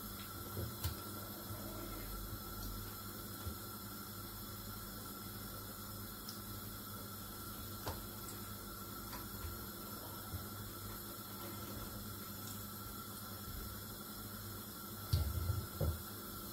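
Batter-coated apple rings frying in a pan of hot oil, a steady sizzle, with a few faint clicks and a couple of dull bumps near the end.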